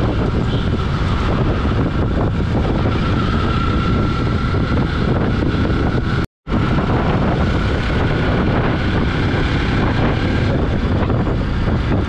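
Wind rushing over the microphone of a moving motorcycle, with the bike's engine running steadily underneath. The sound cuts out completely for a split second a little past halfway.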